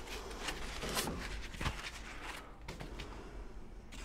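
Foam packing pieces being handled and pulled out of a laser engraver's cabinet: faint rubbing and scraping with a few light knocks, quieter in the second half.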